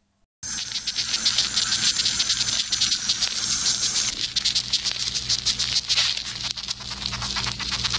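Distress sound of trapped ants, their stridulation picked up close: a dense, rapid rasp of tiny clicks over a high hiss, starting about half a second in.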